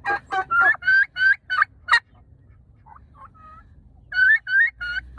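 Tom turkey gobbling: a long, rapid rattling gobble in the first two seconds, then a shorter second gobble near the end.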